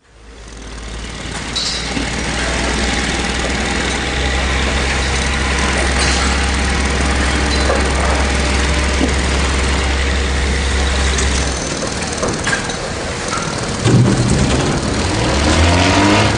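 Construction site ambience: heavy machinery engines running over a dense background of scattered knocks and clatter, fading in at the start. A low steady drone stops about two-thirds of the way through, and near the end an engine revs up, rising in pitch.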